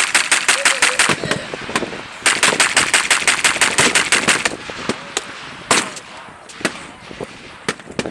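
Machine guns firing blanks in two long bursts of about eight rounds a second, the second starting about two seconds in. Scattered single rifle shots follow in the second half.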